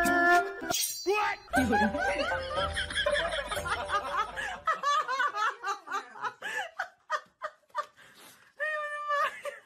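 A short stretch of music ends about a second in. Laughter follows, dense at first and then thinning to scattered chuckles.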